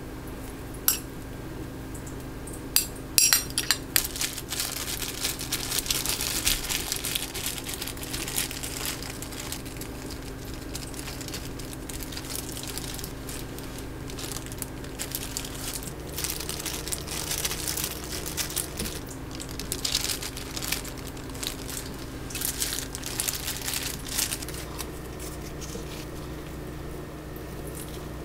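Kitchen handling sounds: a few sharp clicks and clinks of dishes and utensils, then stretches of crinkling, as of packaging or wrap being handled.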